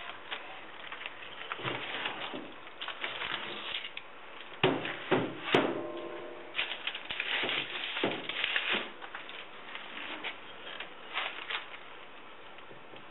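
Paintbrush stippling resin into fiberglass cloth in a mold: rapid, irregular scratchy dabs in clusters. About five seconds in come three louder knocks, the last with a brief ringing tone.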